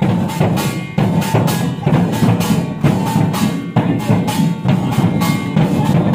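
Kirtan hand drums, with cymbal-like strokes, beaten in a quick, steady rhythm.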